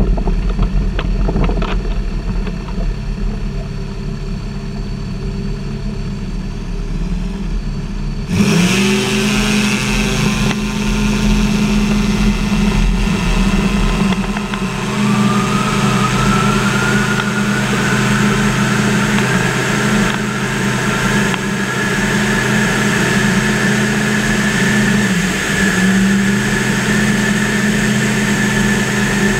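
Ultralight trike's pusher-propeller engine running at low throttle while it rolls over grass, then opening up sharply to full power about a quarter of the way in for the takeoff run and climb. A steady high whine comes in and rises slowly about halfway through.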